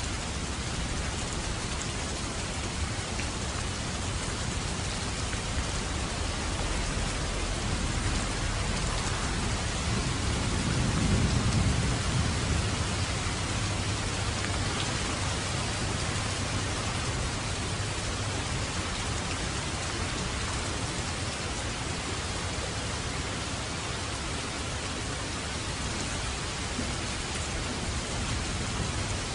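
Steady rain falling, with a low rumble of thunder swelling and fading about a third of the way in.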